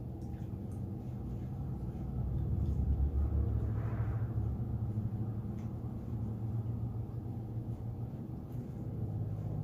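Soft chewing and mouth noises of someone eating, with a few faint clicks, over a steady low hum; the low rumble swells for a couple of seconds in the middle.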